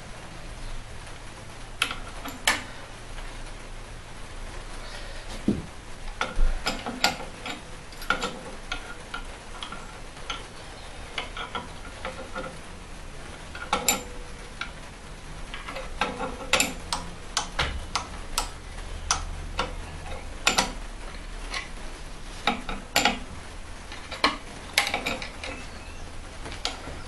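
Irregular metallic clicks and taps from a hand-built steel rod and spring-scale rig being worked by hand with a metal tool, some in quick clusters, over a low steady hum.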